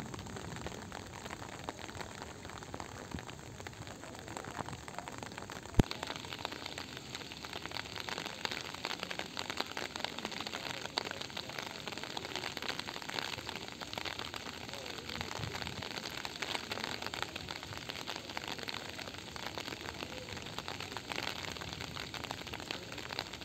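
Steady rain falling, an even hiss made of many fine drop impacts. About six seconds in there is one sharp click, and from then on the rain sounds brighter.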